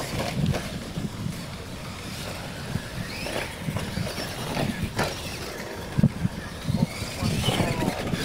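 Radio-controlled monster trucks racing over a dirt track, a low uneven rumble broken by a few sharp knocks, the loudest about five and six seconds in.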